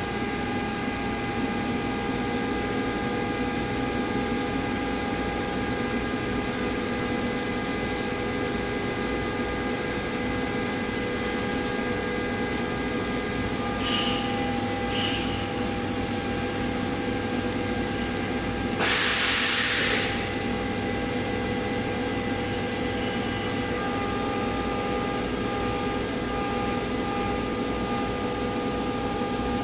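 Steady hum of machinery with several steady whining tones. About two-thirds of the way through there is a loud hiss lasting about a second, and a few seconds before it two faint short chirps.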